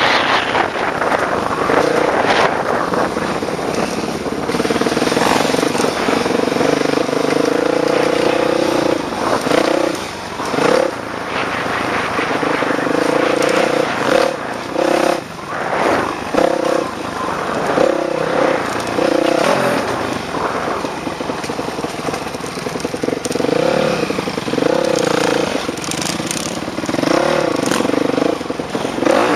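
Dirt bike engine running hard while being ridden over jumps, its pitch rising and falling again and again as the throttle is opened and rolled off, with a steady rush of wind over it.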